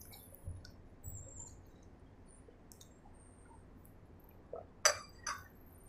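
Faint sips and swallows close to a clip-on microphone. Near the end come a few sharp clicks as a ceramic cup is lowered and set down.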